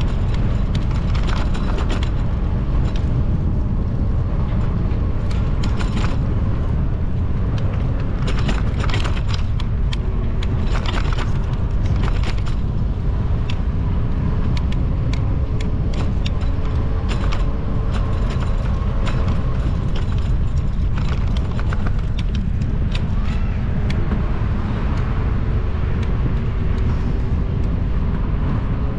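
Bicycle ride recorded from the bike: a steady rumble of wind and road on the microphone, with the bike rattling and clicking irregularly over the pavement.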